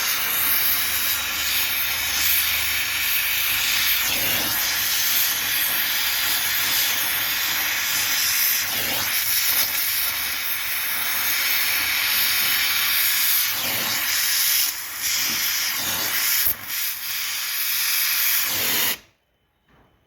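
Gas welding torch hissing steadily as it welds the lead plates of a lead-acid battery together. It dips briefly a few times and cuts off sharply near the end.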